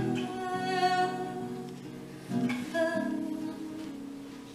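Live song: a woman singing with acoustic guitar accompaniment, holding long notes between repeats of the refrain. The music grows softer toward the end.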